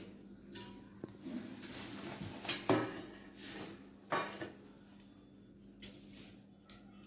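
A few light knocks and clinks of dishware, the loudest about two and a half seconds in and another about four seconds in, over a faint steady hum.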